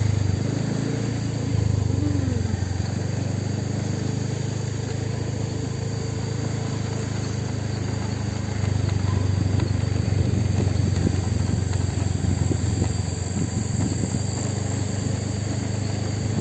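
A vehicle engine running steadily on the move, with road and wind noise. Its low drone shifts in pitch about a second and a half in, and again around nine seconds in, as the engine speed changes.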